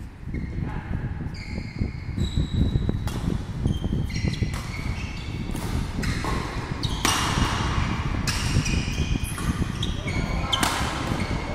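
Badminton play on an indoor court: rackets repeatedly striking the shuttlecock, sneakers squeaking on the court floor and feet landing, with many short sharp hits and brief high squeaks throughout.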